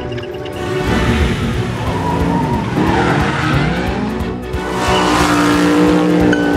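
Cartoon sound effects of a small vehicle's engine running and tyres squealing, over background music.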